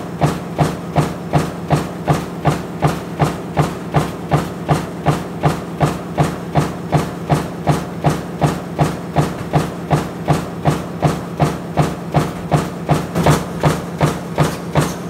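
Punch press running a progressive stamping die that cuts motor stator and rotor laminations, striking in a steady rhythm of about three strokes a second over a constant low hum.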